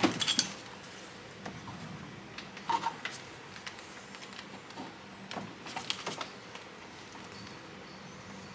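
A few short, light clicks and knocks of metal parts and tools being handled, in small clusters at the start, near three seconds in and around six seconds, over a low steady room background. No impact wrench is running.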